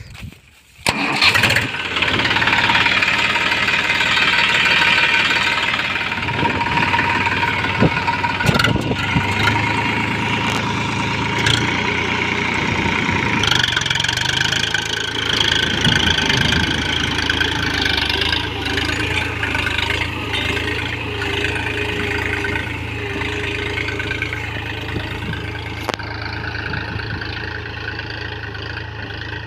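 Massey Ferguson 254 DI diesel tractor engine starting about a second in, then running steadily. From around the middle it is working, pulling a tined cultivator through the field.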